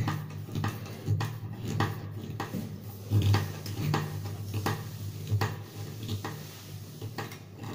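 Screwdriver tightening the central screw through a chrome sink drain strainer into the siphon below, with repeated metallic clicks and scrapes, about two a second, as the screw is drawn tight to seal the drain.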